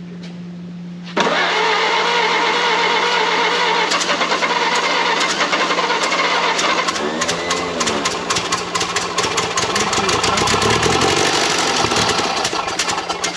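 1932 Ford Model B four-cylinder engine cranking and running roughly, with many sharp irregular pops. It starts suddenly about a second in, rises and falls in speed a few times, and drops away near the end. It is struggling to run: the choke is sticking and, by the mechanics' account, the fuel is not getting through properly.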